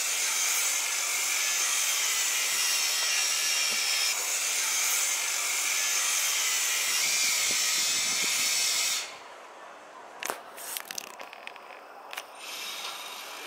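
Metal grinder cutting through a steel wheel clamp: a steady, high grinding noise for about nine seconds that stops abruptly, followed by a few scattered metallic clicks and knocks.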